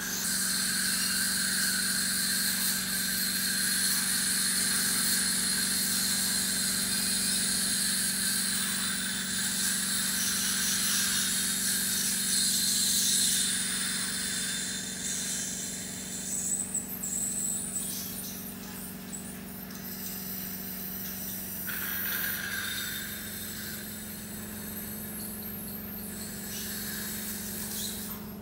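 Dental suction hissing with a high squeal over a steady low hum. The hiss is strongest in the first half and eases off a little past the middle.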